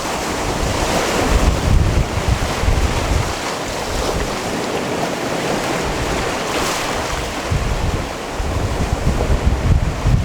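Sea waves washing in and out against a rocky shore in a continuous surge, with wind buffeting the microphone in low rumbles at the start and again near the end.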